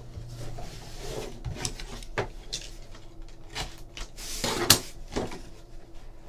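Hands handling cardboard trading card packs on a table: scattered taps and clicks, then a rasp ending in a sharp click about four and a half seconds in as a box cutter slits a pack open.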